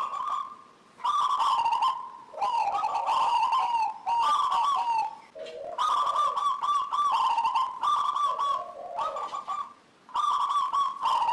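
Zebra dove (perkutut) singing: phrase after phrase of quick, rolling coo notes, some dipping lower, with short pauses between phrases.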